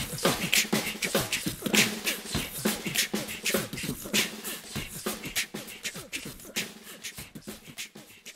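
Beatboxing: a quick, steady beat of mouth-made clicks and pops mixed with short vocal sounds, growing fainter over the last few seconds.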